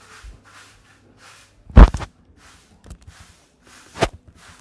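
A loud, short breath blown close to the microphone about two seconds in, and a shorter, weaker one near the end.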